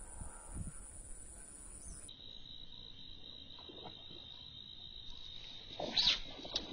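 Insects trilling steadily in the background; about six seconds in, a sudden loud splash at the water's surface as a snakehead (haruan) strikes a soft frog lure.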